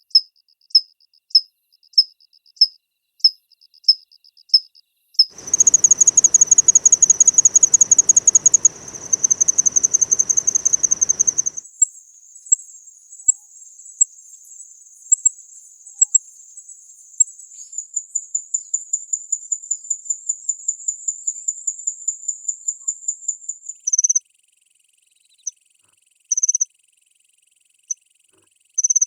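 Scaly crickets of the kanetataki group singing, one recording after another. First the Japanese scaly cricket's evenly spaced high metallic chirps, about one and a half a second. From about five seconds there is a continuous high trill with a low rumble behind it, then from about twelve seconds a higher steady trill, and near the end a few spaced chirps.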